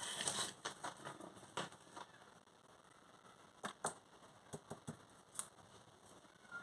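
Faint handling noise from small craft or packaging items: a brief rustle at the start, then a few scattered sharp clicks and taps.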